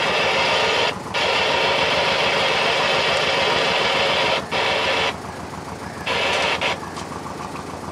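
A boat engine idling with a steady low pulse, under a loud hiss that cuts in and out abruptly several times.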